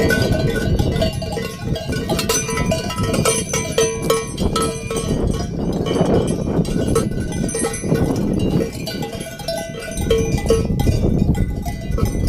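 Many livestock bells on a flock of sheep clanking unevenly and overlapping as the animals move.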